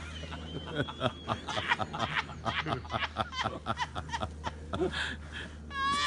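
A person snickering and chuckling under their breath in short bursts, breaking into a louder laugh near the end. A bird chirps briefly early on.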